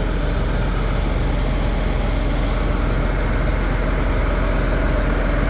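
Large truck engine running steadily with a low, even hum.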